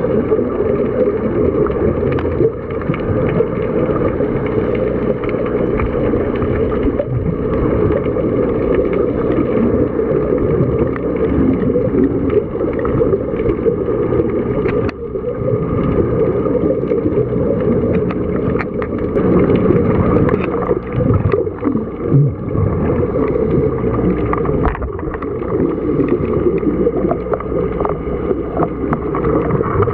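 Steady underwater rumble and hiss heard through a camera's waterproof housing, with a few faint steady tones above it and no clear pauses.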